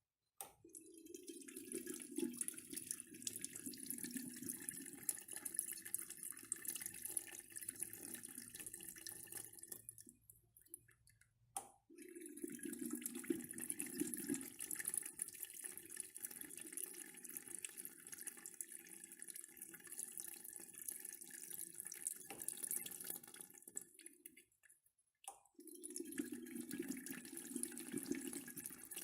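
Urinal flushed three times. Each press of the flush valve gives a short click, then water rushes for about ten seconds before tapering off. The second press comes about twelve seconds in and the third about twenty-five seconds in.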